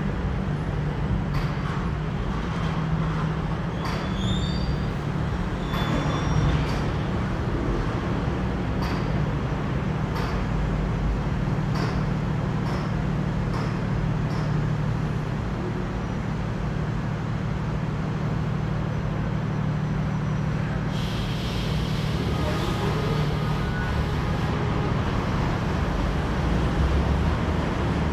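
Steady city traffic noise with a constant low hum, a few faint clicks and brief high chirps, and a hiss that comes in for about three seconds late in the stretch.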